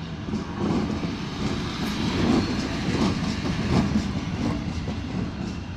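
ČD class 162 electric locomotive passing at close range, its wheels knocking over the rail joints with a clickety-clack over a steady low rumble. It grows louder about half a second in and is loudest in the middle as the locomotive goes by.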